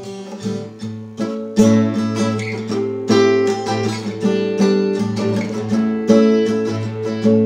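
Acoustic guitar strumming chords in a steady rhythm, about two strokes a second.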